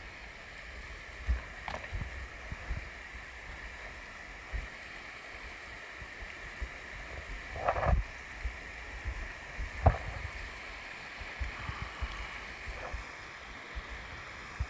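Steady rush of a rocky river, with footsteps, brushing through grass and scattered knocks as someone scrambles down the bank toward the water. Two louder knocks come about eight and ten seconds in.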